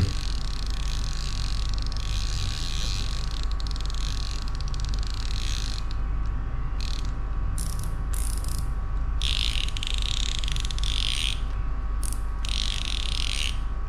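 Shimano Ocea Jigger 1501HG jigging reel's clicker ratcheting in runs of rapid clicks as the reel is worked by hand, fairly loud, with the strongest runs in the second half. A steady low electrical hum lies underneath.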